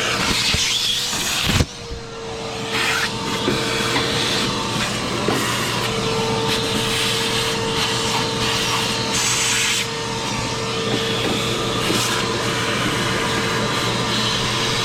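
Shop vacuum running with a steady motor whine, its nozzle rubbing and scraping as it sucks built-up dirt out of a gas furnace. The suction sound dips briefly about two seconds in.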